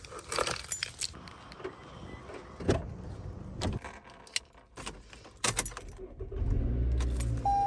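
Keys jangling and clicking, then a car engine starting and running with a steady low rumble, with a short beep near the end.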